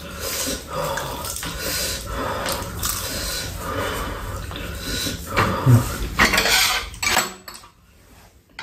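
Spoons clinking and scraping against bowls as two people eat soup at a table, with sipping and eating noises; the clatter stops about seven seconds in.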